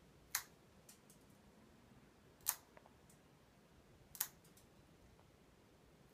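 Scissor-style pet nail clippers snipping through a cat's claws: three sharp clicks, about two seconds apart, with a faint tick or two between them.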